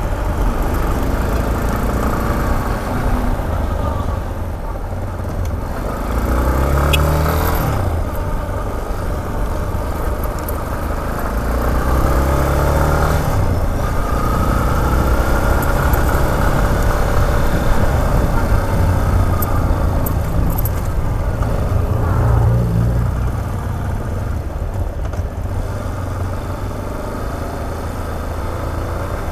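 Yamaha XTZ 250 single-cylinder four-stroke engine running under the rider, its note rising and dropping several times as the bike accelerates and slows in city traffic.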